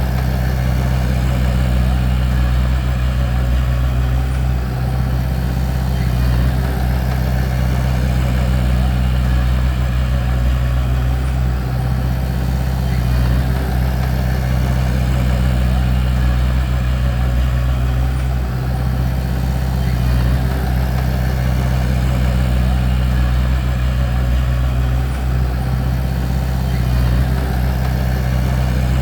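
Bulldozer's diesel engine running steadily at a constant pitch, with a low rumble and small dips in level now and then.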